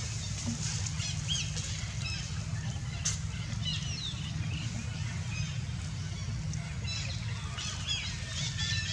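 Scattered short, high-pitched chirping calls, some sliding in pitch, over a steady low rumble.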